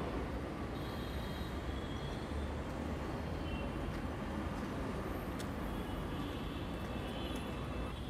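Steady traffic noise of a busy city road: a low rumble and hiss, with faint high tones that come and go.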